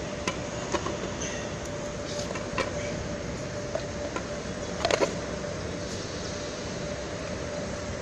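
Steady background machine hum with a faint held tone, over which filter cartridges and fittings click and knock against the stainless filter plate as they are handled; the loudest knocks come about five seconds in.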